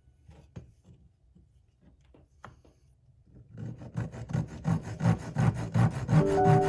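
A few faint clicks and taps on wood, then a saw starts cutting through wood about three and a half seconds in, its rapid rasping strokes growing louder. Soft sustained music notes come in near the end.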